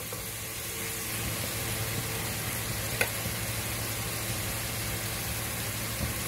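Sliced onion, grated carrot and urad dal sizzling steadily in coconut oil in a pan, with one light click about three seconds in.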